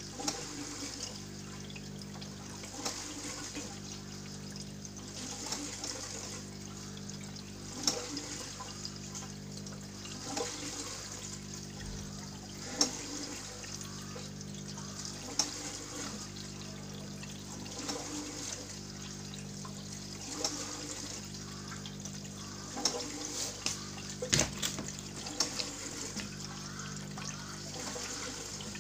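Water trickling and gurgling at an aquaponics bell siphon made from a cut plastic bottle while the grow bed slowly fills at a low flow of about 3 litres a minute. Small bubbles pop and drip irregularly over a steady low hum.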